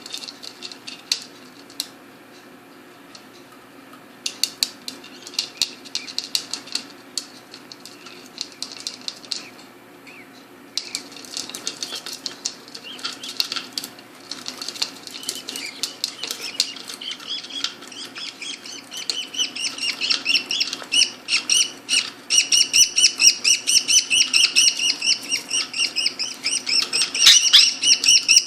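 Pet budgerigars: a scatter of sharp clicks and rustles at first, then fast, repeated chirping that builds and grows louder through the second half.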